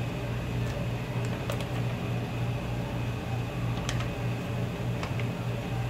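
Steady low hum of kitchen machinery, with a few faint light clicks of a spoon against a stainless steel bowl.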